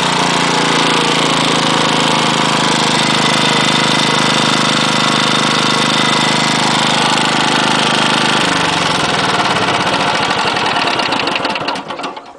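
Mitsubishi GM131L single-cylinder four-stroke engine running steadily with an abnormal knock, which the owner takes for a rod bearing knock from petrol thinning the oil after carburettor overflow. About two-thirds of the way through it is shut off, slows with separate strokes and stops near the end.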